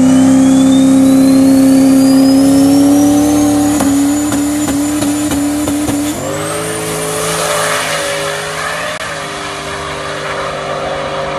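Turbocharged pickup truck launching down a drag strip at full throttle: a loud engine note climbing steadily, with a high turbo whine rising above it. About six seconds in the note breaks and steps as it shifts, and the sound grows fainter as the truck pulls away.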